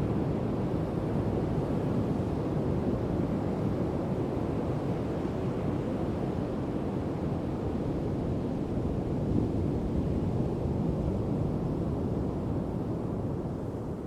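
Large ocean waves at high tide rolling in slowly, a deep, steady surf with a soft boom.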